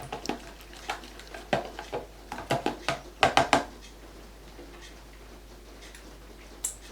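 A spoon stirring a thick tomato-ketchup and honey marinade in a container, clinking and scraping against the sides in irregular taps, a few sharper knocks near the middle; the stirring stops a little over halfway through.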